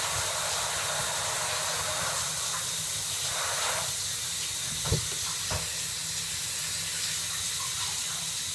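Steady hiss of water running into a bathtub, with two dull thumps about five seconds in.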